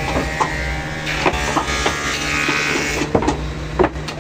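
Electric motor of a woodworking machine running with a steady hum, with several hollow knocks of wooden boxes being handled and set down.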